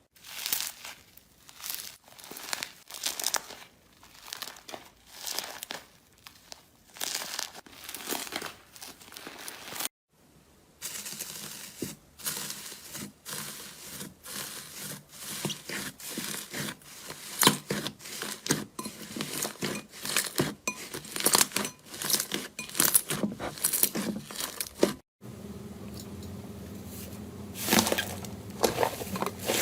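Slime being squeezed and pressed by hand, giving quick runs of crackling, crinkling pops. The sound drops out briefly twice, about ten seconds in and near twenty-five seconds.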